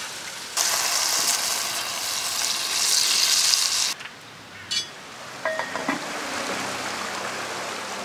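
Water poured into a hot cast-iron Dutch oven with browned lamb, hissing and sizzling for about three seconds before stopping abruptly, followed by a few light clicks.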